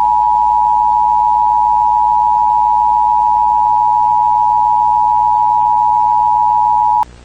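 Emergency Alert System attention signal: two steady tones sounded together, loud and unwavering, held for about seven seconds before cutting off abruptly.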